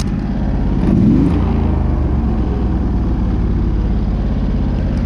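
Simplicity lawn tractor's engine running steadily at a standstill, its note briefly swelling about a second in.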